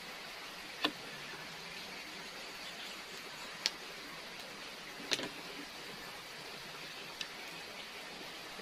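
Four sharp knocks, a few seconds apart, of a kitchen knife striking a split-bamboo board while cutting potatoes into strips, over a steady background hiss.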